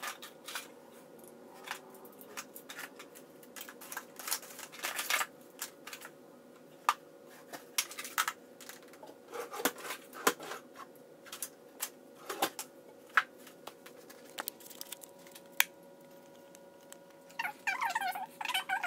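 Plastic bottles, containers and hair tools being handled and set down: scattered clicks, knocks and light clatters, over a faint steady hum.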